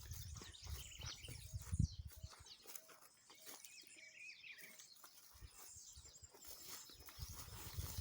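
Birds chirping and calling: high chirps throughout, a short warbling phrase around the middle, and a run of about six short, lower notes just before it. A low rumble comes and goes in the first two seconds and again near the end.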